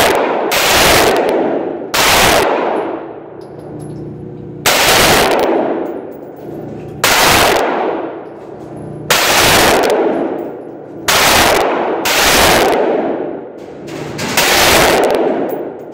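AR-15 rifle firing about nine single shots, one every one to two and a half seconds, each crack followed by a long echoing tail.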